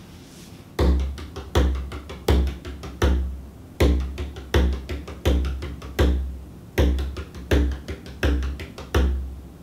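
Bodhrán played with a tipper in a reel groove, starting about a second in. A deep bass stroke lands about every three-quarters of a second, with lighter strokes between, the tonal hand barely touching the skin to keep the in-between strokes low and bassy.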